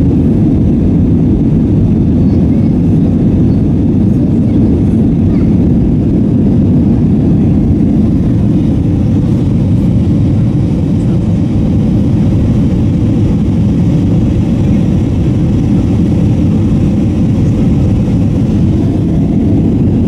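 Steady, loud cabin noise inside an Airbus A321-232 airliner: the deep rumble of its IAE V2500 turbofan engines and the rush of air along the fuselage during the climb after takeoff.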